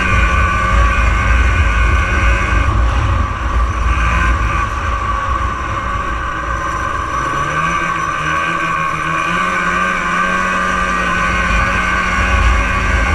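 1989 Arctic Cat Jag 440's fan-cooled two-stroke engine running as the snowmobile rides along. The throttle eases off about three seconds in, then the engine pitch climbs again from around seven seconds as it picks up speed.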